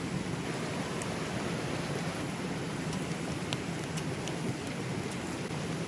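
Steady rain falling, with scattered single drops ticking sharply now and then.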